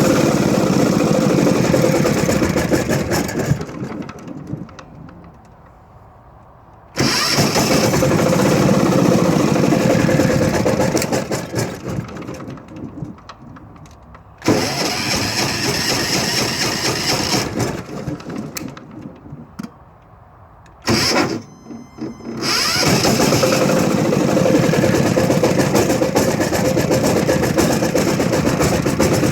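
Diesel generator engine starting hard: it fires and runs for a few seconds, then fades and dies away, and this happens again several times, with one attempt lasting only a moment. After the last attempt, about two-thirds of the way through, it keeps running steadily.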